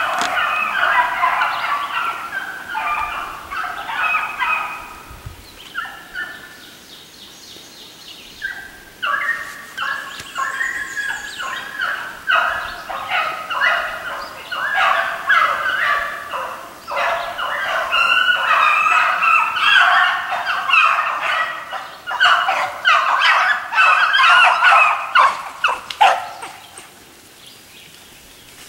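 A pack of hounds baying on a hare's track: many short, overlapping barks in a steady, busy run that falls quiet about 26 seconds in.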